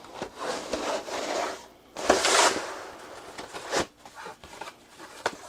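Rustling and rubbing from something being handled, with a louder scrape about two seconds in and a sharp knock shortly after.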